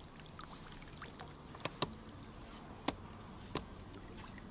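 Faint splashing and trickling water broken by four or five sharp little clicks, two close together about a second and a half in and more near three and three and a half seconds, while the landed fish is handled at the water's edge.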